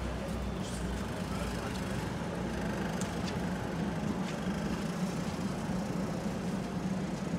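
Busy urban outdoor ambience: a steady low engine-like hum of traffic under a general crowd noise, with a few sharp clicks.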